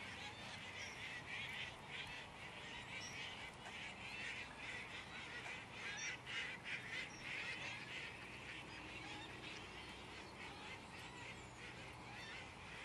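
A flock of water birds calling continuously, many short calls overlapping.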